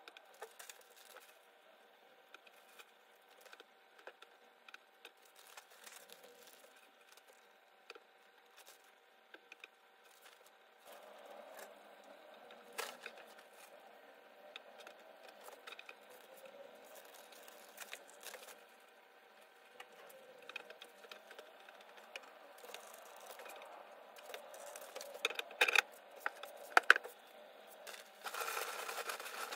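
Soft rustling of crinkled paper-shred bedding handled by hand, with scattered light clicks. Near the end come louder rustles and a few sharp clicks as wood-shaving bedding is handled.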